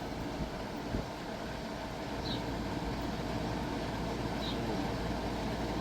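Steady low background hum and hiss with no siren running, and two faint, short high chirps about two seconds apart.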